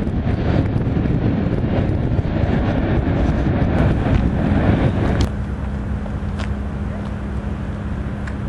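CSX freight train rumbling past on the rails, with wind on the microphone; the sound cuts off suddenly about five seconds in, leaving a steady low hum with a few light clicks.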